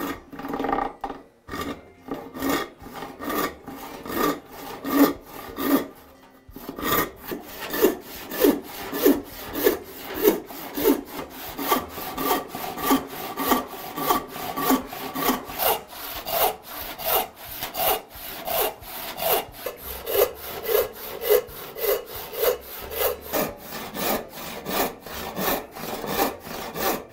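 Western handsaw cutting a red oak board by hand. Short, uneven strokes start the kerf with the thumb guiding the plate, then after a brief pause about six seconds in the sawing settles into steady full strokes at about two a second.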